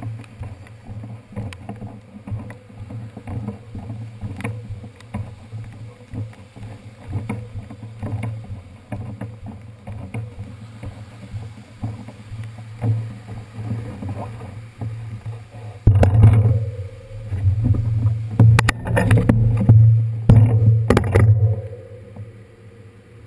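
Muffled low rumbling and irregular knocking from a handlebar-mounted camera on a bicycle being wheeled along a wet sidewalk with a flat rear tire. About two-thirds of the way in, a stretch of louder knocks and rubbing lasts several seconds, then dies down.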